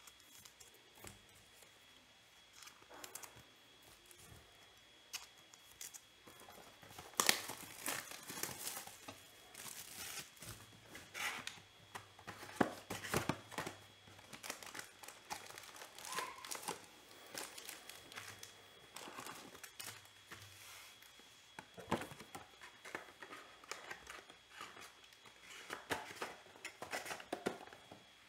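A cardboard box of Panini Select baseball cards being torn open by hand and its wrapped packs pulled out. The packs crinkle and rustle in irregular bursts with sharp crackles, starting after a few quiet seconds.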